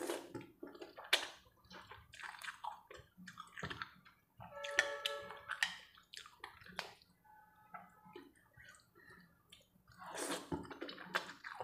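Close-miked eating of chicken noodles: wet slurping of noodle strands and chewing with lip smacks. A longer, denser slurp comes about ten seconds in.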